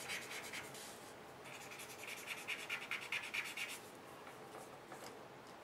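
A rolled-paper blending stump rubbed quickly back and forth under firm pressure over layered colored pencil on paper, blending the wax layers and flattening the paper's tooth. The fast, even strokes pause briefly about a second in and stop about two-thirds of the way through.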